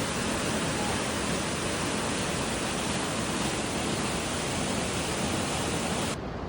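Waterfall or rushing mountain stream: a steady, loud rush of water that turns duller near the end.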